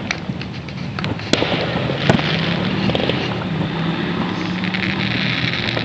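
Neighbourhood fireworks going off: sharp reports, two louder ones about one and two seconds in, among smaller pops, over a steady background rumble with a faint low hum.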